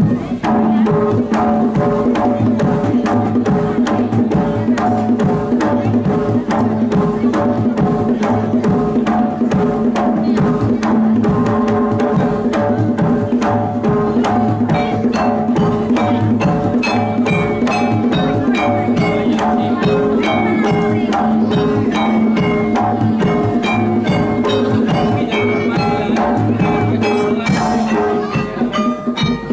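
Jaranan gamelan accompaniment: rapid hand-drum strokes over steady ringing tuned-percussion tones, with a higher melody line coming in over the second half.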